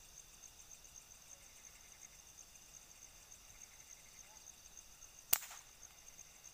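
Steady high insect chirring with a fast pulse, and one sharp crack about five seconds in: a shot taken at a bird.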